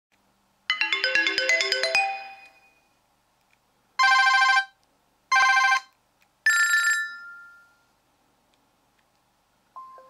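BlackBerry Curve 9320 playing short previews of its built-in ringtones through its loudspeaker: a quick electronic run of notes about a second in, then two short buzzy ringing bursts, then a chime-like tone that fades, each cut off as the next ringtone in the list is selected.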